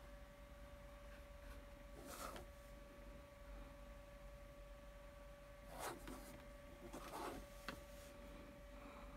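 Near silence: quiet room tone with a faint steady hum. A few brief soft rustles come about two seconds in and again around six and seven seconds.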